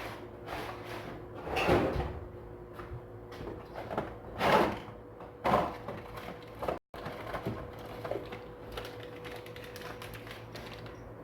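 Rummaging through a storage box of spare parts: rustling, scraping and small knocks, with louder scrapes about two seconds in and again around four to five seconds in, then quieter clicks.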